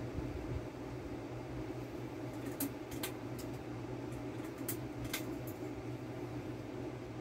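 Harbor Breeze Typhoon 30-inch ceiling fan running steadily on medium speed, a low hum with an air-conditioner running alongside. Several light clicks come through in the middle.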